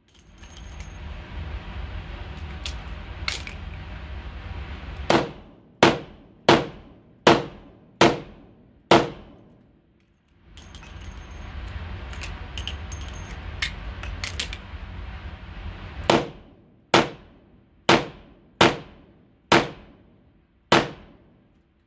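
Taurus RT 889 .38 Special revolver firing two strings of six shots at a steady pace, a little under a second apart. The first string starts about five seconds in and the second about sixteen seconds in, and each shot rings on in the indoor range. Between the strings come small metallic clicks of the cylinder being opened and reloaded.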